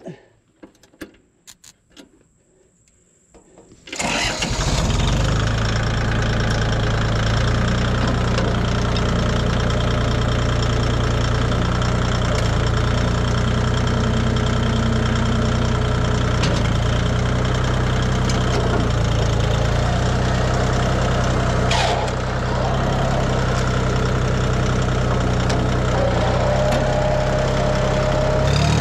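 A few light clicks and knocks, then about four seconds in a tractor engine starts abruptly and runs steadily at idle. Its note bends up and down near the end.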